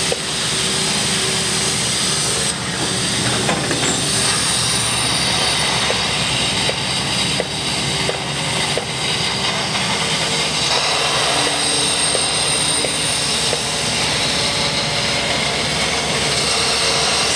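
Diesel engine of a Hitachi EX-series hydraulic excavator running steadily under load as it works its arm and bucket, with water pouring and splashing from the raised bucket.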